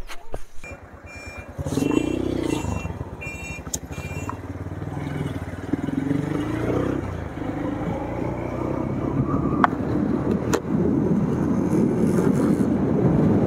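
Motorcycle engine pulling away and gaining speed, growing gradually louder, with a few short high beeps about two to four seconds in.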